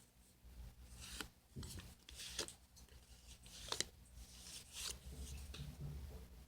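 Yu-Gi-Oh booster packs and cards being handled: a series of short rustles and crinkles of foil wrappers and card stock, with one sharper snap a little past the middle.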